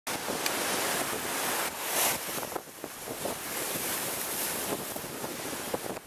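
Rough sea waves crashing and surging against a stepped concrete sea wall, a constant rushing wash of churning surf that swells loudest about two seconds in.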